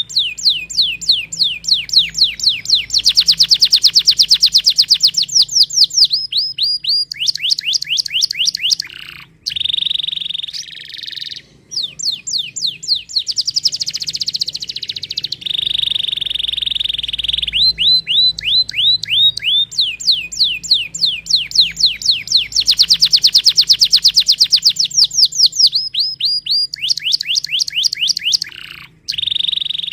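Domestic canary singing a long song of rapid trills, many fast down-sweeping notes in a row, with held steady buzzing notes in the middle. The same song phrase repeats about halfway through.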